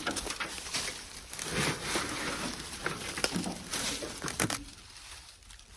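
Dry rat's nest material being pulled and handled: irregular rustling and crunching with scattered clicks and a few sharper knocks, dying down near the end.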